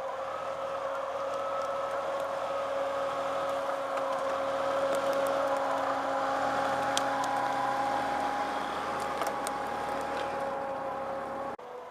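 Jeep Wrangler YJ's engine running at low revs as it crawls past over rough ground, with a steady whine; it grows a little louder as the Jeep comes alongside. A few light clicks are heard in the second half, and the sound cuts off suddenly near the end.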